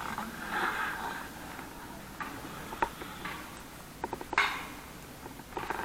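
Scattered sharp clicks and light knocks, with a brief rustle about half a second in and a quick run of ticks near the end.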